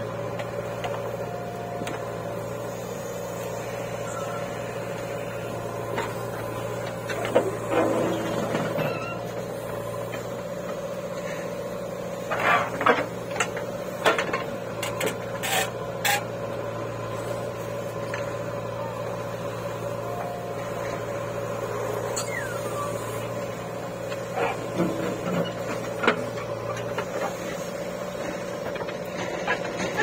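JCB 3DX backhoe loader's diesel engine running steadily as the backhoe digs, with clusters of sharp clanks and knocks from the bucket and arm linkage several times.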